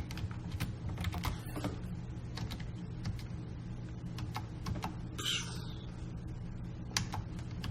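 Irregular clicks of a computer keyboard and mouse being worked, over a low steady hum, with a brief rustle about five seconds in.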